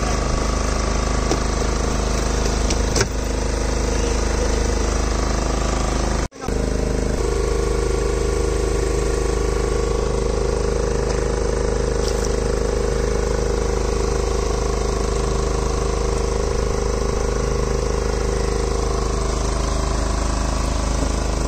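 Small fishing boat's engine running steadily with a low drone. The sound drops out for a split second about six seconds in.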